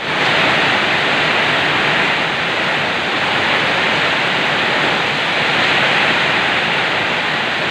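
Steady, loud rush of heavy rain.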